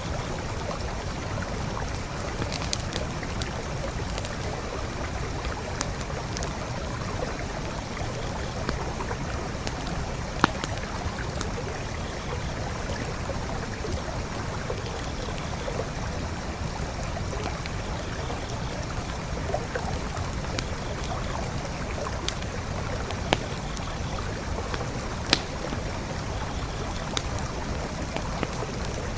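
Forest creek flowing steadily, with a campfire crackling over it: scattered sharp pops and snaps, a few louder ones about a third of the way in and near the end.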